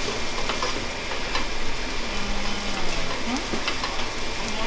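Shrimp fried rice frying in a pan on the stove, with a spatula stirring and scraping it in short clicks and scrapes over a steady sizzle.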